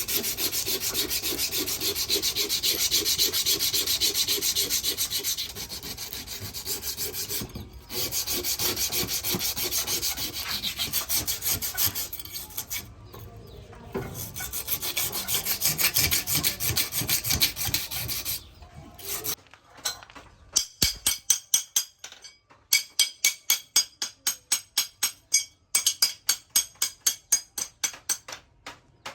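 Rhythmic rasping strokes of a hand tool scraping across steel, about four to five strokes a second. About two-thirds of the way in they give way to sharper, separate strokes with a slight metallic ring, coming in short runs.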